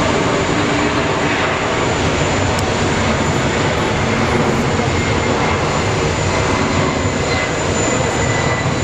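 Airbus A380's jet engines running at low power on the apron: a steady rushing noise with a faint, thin high whine held throughout.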